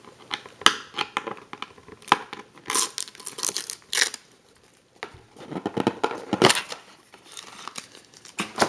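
Trading-card box and its wrapping being opened by hand: irregular tearing and crinkling with sharp clicks and rustles, pausing briefly about halfway through.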